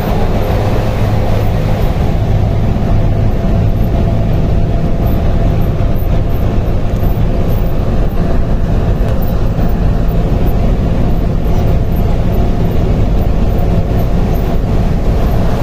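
Bus cabin at highway cruising speed: a steady low drone of engine and road noise, unchanging throughout.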